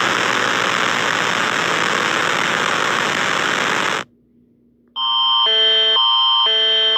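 Emergency alert alarm played back: about four seconds of harsh static-like noise, a second's pause, then an electronic two-tone alarm switching between two chords about twice a second over a steady high tone. The alarm is heard as a warning of imminent attack.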